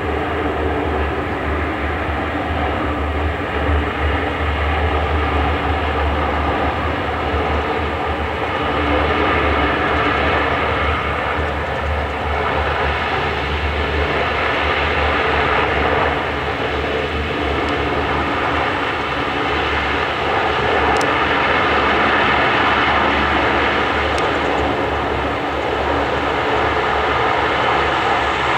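The four Allison T56 turboprop engines and propellers of a P-3C Orion patrol aircraft running on the ground, a steady droning hum that swells slightly in loudness a couple of times.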